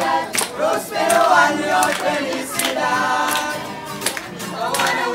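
A group of carolers singing a Christmas carol together in chorus, accompanied by an acoustic guitar.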